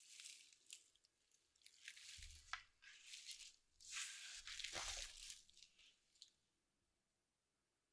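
Plastic cling film crinkling and rustling as it is stretched and pressed down over a baking tray of dough, in a string of short, quiet rustles with a few clicks, dying away about six seconds in.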